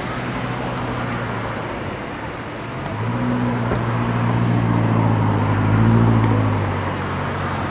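A vehicle's low, steady engine hum passing by: it swells about three seconds in, is loudest around six seconds, then eases off, over a steady background hiss.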